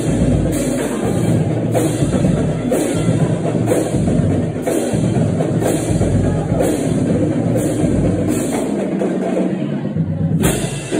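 Loud drum-heavy music with a steady beat and a strong bass drum.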